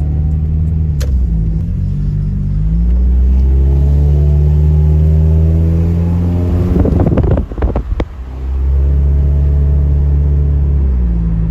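Car engine pulling under load while driving, with road rumble. The engine note climbs twice, then drops away briefly about two-thirds through, with a few sharp clicks, before settling back to a steady drone.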